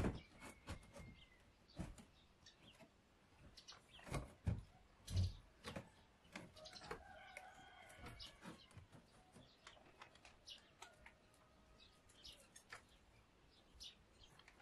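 Faint chickens clucking, with a longer drawn-out call about seven seconds in, among scattered small knocks and clicks.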